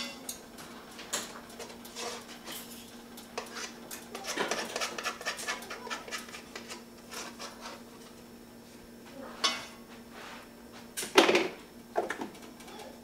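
A knife clinking and scraping as pats of butter are cut from a stick and dropped into a cooking pot, with a few louder knocks of kitchenware near the end, over a steady low hum.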